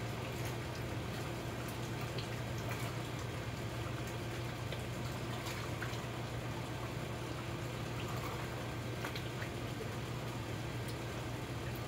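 Chicken pieces simmering in sauce in a large aluminium pot: a steady bubbling hiss with faint scattered crackles, over a steady low hum.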